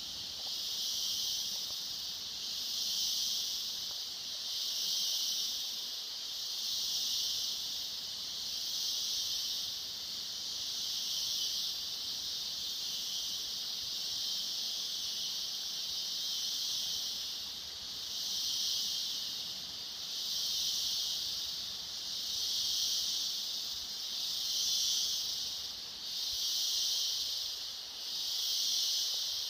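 Chorus of cicadas: a high, hissing buzz that swells and fades evenly about every two seconds.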